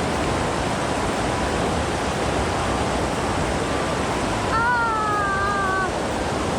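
Mountain stream water rushing steadily. A little past halfway, a brief pitched tone with overtones sounds for about a second and a half, sagging slightly in pitch.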